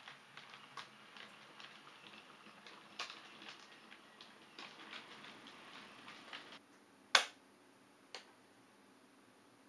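OO gauge model Class 375 Electrostar running on the layout, its wheels giving a rapid, irregular clicking over the track and pointwork. The clicking stops after about six and a half seconds, followed by one sharp, loud click and a fainter one a second later.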